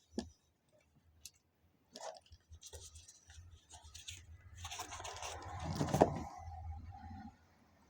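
Rustling and scraping of a leather knife pouch and its packaging being handled, building to the loudest moment about six seconds in and stopping shortly after. A single sharp click right at the start.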